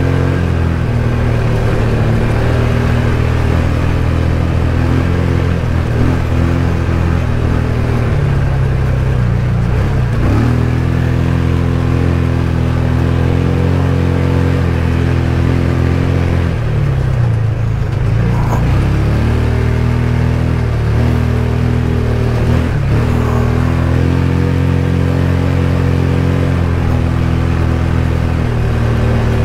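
ATV engine running steadily while being ridden. Its pitch drops and climbs again with the throttle a few times, around ten, eighteen and twenty-three seconds in.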